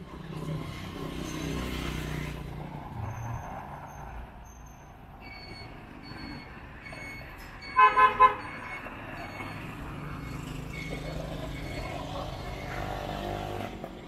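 Vehicle horn tooted three times in quick succession about eight seconds in, over street traffic with vehicles passing.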